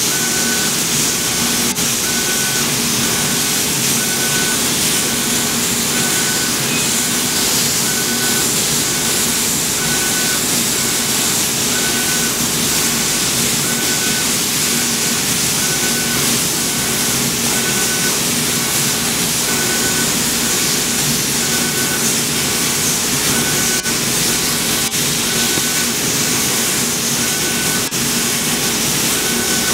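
Dual-head laser cutting machine at work cutting slits in fabric: a steady rushing hiss, with a short high tone repeating about once a second as the heads work line by line.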